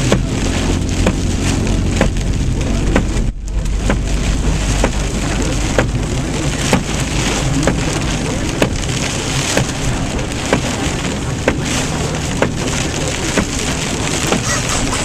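Heavy rain and large hail beating on a van's body, with sharp, irregular hailstone impacts over a steady downpour.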